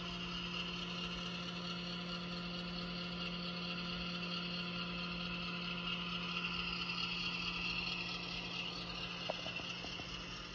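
DCC sound decoder in an HO-scale Walthers Proto EMD GP7 model locomotive playing a steady diesel engine hum through its small onboard speaker, with one short click about nine seconds in.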